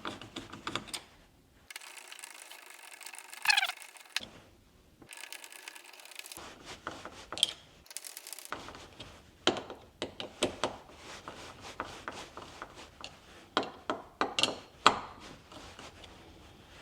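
Screws being driven by hand with a long screwdriver into a smart door lock's mounting plate: bursts of rapid mechanical clicking and ticking, with a brief squeak a few seconds in.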